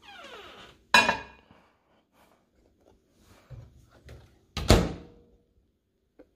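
A ceramic coffee mug set down on a microwave's glass turntable with a sharp clink about a second in. A few seconds later the microwave door is shut with a loud thunk.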